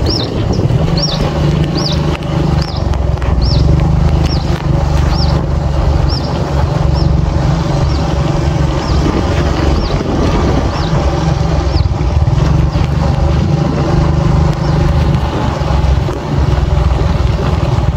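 Motorcycle engine running steadily on the move. A high chirp repeats about twice a second over it and fades out about twelve seconds in.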